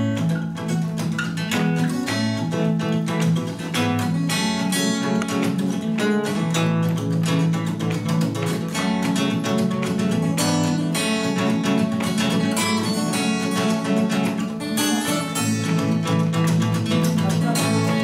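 Two acoustic guitars playing together, an instrumental passage of plucked notes that begins abruptly, with no singing.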